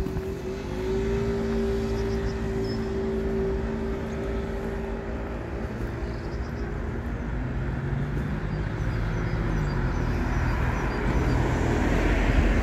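Street traffic: motor vehicles driving past. A steady engine hum fills the first half and a lower hum follows, then a rush of noise builds near the end.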